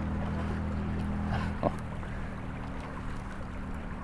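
Spinning reel being cranked to wind in line, a steady whir that stops with a click about a second and a half in, over the rush of a small stream.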